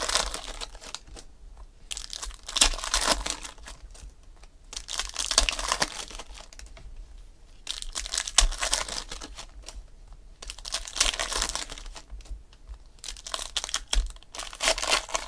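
A stack of glossy trading cards sliding and rustling against each other as they are handled through one by one. The rustles come in short bursts about every two to three seconds.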